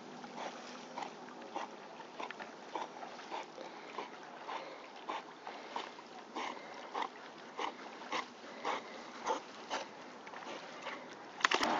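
A swimming dog breathing hard through its nose in short, regular puffs, about one every half second or so, with a retrieving toy clamped in its mouth. A single sharper, louder knock comes just before the end.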